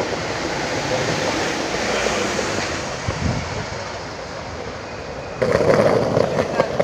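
Skateboard wheels rolling over paving: a steady rumbling hiss with small clicks from the joints, growing louder and rougher about five and a half seconds in.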